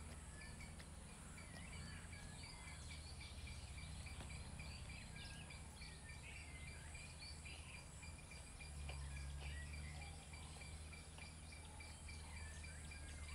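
Faint outdoor ambience: scattered bird chirps and calls over a steady, finely pulsing high note like an insect trill, with a low rumble underneath that swells briefly just past the middle.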